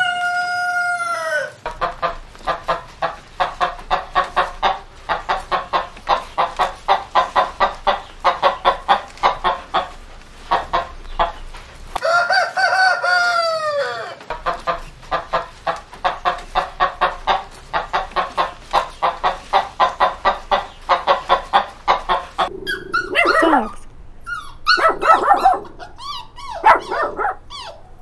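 A rooster crowing, then rapid, continuous chicken clucking, with a second crow about halfway through followed by more clucking. Near the end a small dog barks and yelps.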